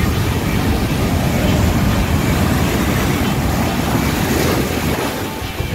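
Ocean waves breaking and surf washing up the shore, a loud steady rush, with wind buffeting the microphone.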